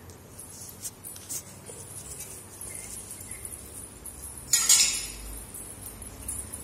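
Clinks of a steel utensil on a marble floor: a few light clicks early, then one loud ringing clatter about four and a half seconds in.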